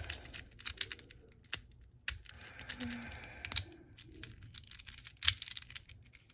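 Plastic 3x3 Rubik's cube being turned quickly by hand, its layers giving irregular rapid clicks and clacks.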